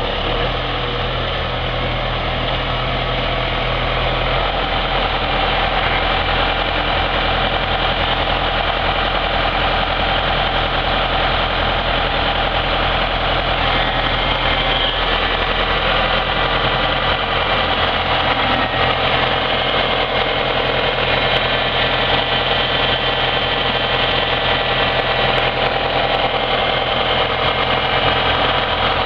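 John Deere 6410 tractor's four-cylinder diesel engine running steadily, growing louder over the first few seconds as the tractor comes closer.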